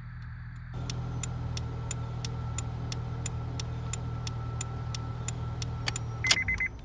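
2006 Honda Accord running with a steady low hum and a light tick about three times a second, now that its ignition switch connector has been reseated and the car starts; the hum steps up a little under a second in. Near the end an electronic chime beeps rapidly.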